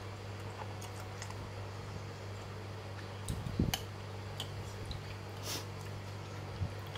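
Eating sounds from a bowl of noodle soup: chewing, with scattered small clicks of a metal fork and spoon against the bowl, over a steady low hum. A louder knock comes about three and a half seconds in.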